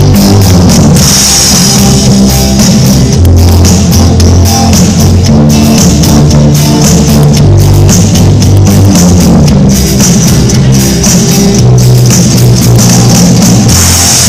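Small rock band playing live and loud: a drum kit beating steadily under electric guitar and a moving bass line.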